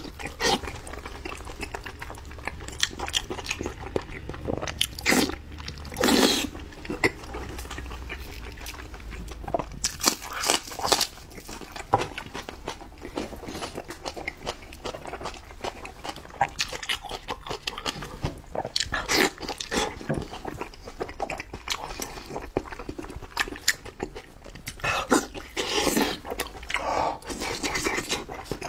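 Close-miked eating of spiced sheep's head meat: wet chewing, biting and lip-smacking, with sticky squelches as oily fingers pull the meat apart. A handful of louder wet bursts stand out among the steady small clicks.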